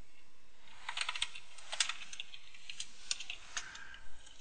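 Computer keyboard typing: a run of irregular key clicks that starts about a second in.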